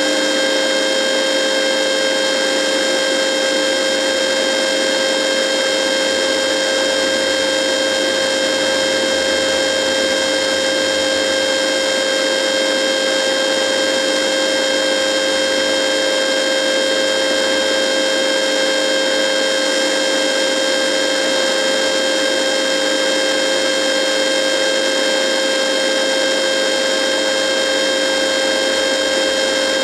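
Radio buzzing: a steady, unchanging electronic buzz of several held tones over a hiss.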